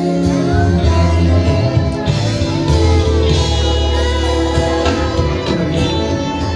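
Gospel music with a singing voice over a band with a strong bass line, playing loud and unbroken.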